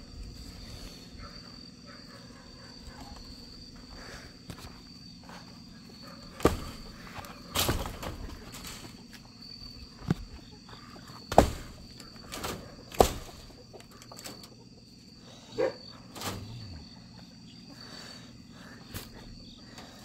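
Night insects keep up one steady high drone. About ten sharp knocks and thumps come through it, the loudest around the middle, from the handheld camera and footsteps working along a wooden-framed chicken-wire pen.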